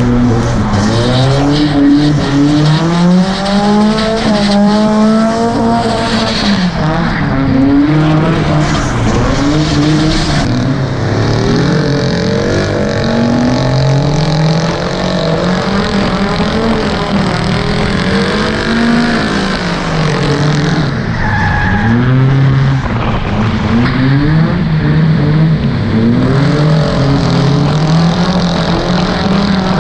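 A drift car's engine revving hard and unevenly, its pitch swinging up and down every few seconds as the throttle is worked through a long slide on a wet track.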